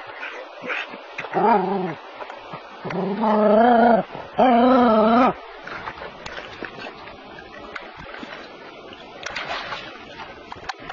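A dog whining in three wavering, pitched cries: a short one, then two longer ones of about a second each that are the loudest sounds, with some splashing water.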